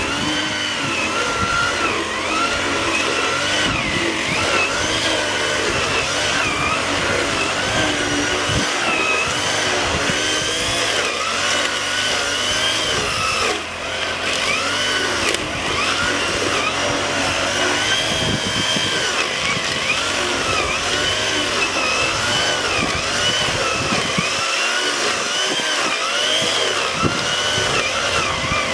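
Brush cutter's small petrol engine running, driving a home-made rotary weeding disc through weeds and mud between rice rows. Its note rises and falls about every second, with one short drop in the middle.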